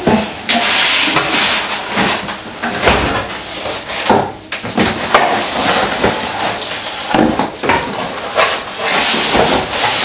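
Packaging being handled: loud, irregular rustling and scraping, with scattered knocks.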